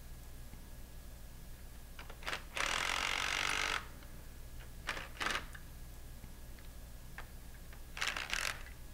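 Cordless power driver running for about a second as it runs down the bolt of a small clamp on a metal diaphragm pump, then a second, shorter burst near the end. Light clicks of the socket and tool being handled come in between.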